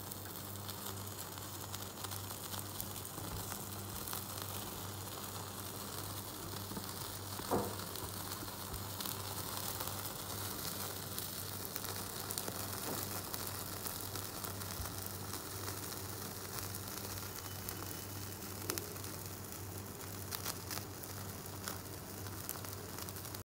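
Paneer tikka skewers sizzling and crackling as they char directly over a gas burner's flame on a wire-mesh roaster, with scattered small crackles over a steady hiss. One louder pop about seven and a half seconds in.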